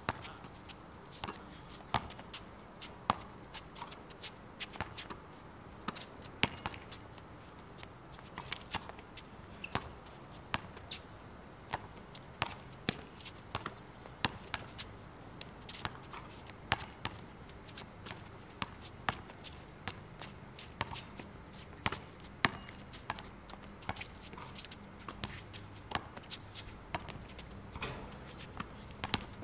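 Basketball bouncing on a hard outdoor court: runs of dribbling and single bounces, coming irregularly throughout.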